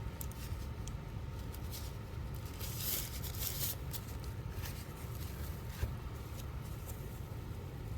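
Faint handling noises as small tools are picked up and turned over: light rustles and clicks, busiest about three seconds in, over a steady low hum.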